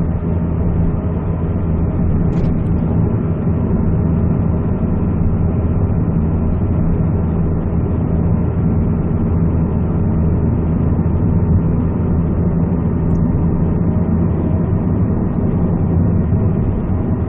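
Steady engine and road noise heard inside the cabin of a 2008 Peugeot 207cc, its 1.6-litre petrol engine pulling the car up a hill at an even pace.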